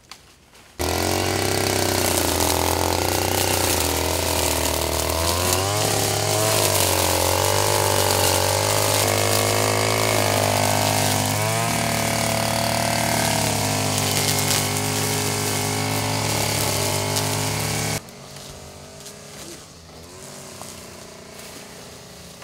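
Gas-powered brush cutter running at high revs, its engine pitch rising and dipping as the blade bites into tall grass and weeds. It starts suddenly about a second in and cuts off suddenly with about four seconds left.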